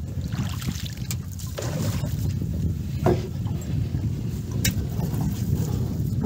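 Low, steady rushing of river water around a small boat being poled along, mixed with wind on the microphone. A few light knocks, and a short falling squeak about three seconds in.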